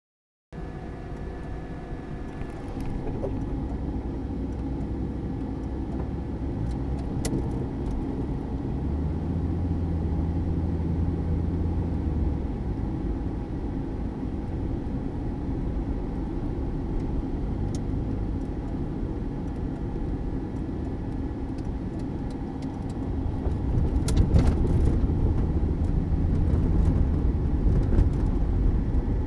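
A 1979 Mercury Zephyr sedan running, its engine making a continuous low rumble. The rumble grows louder about nine seconds in, eases a few seconds later, and is louder again for the last several seconds.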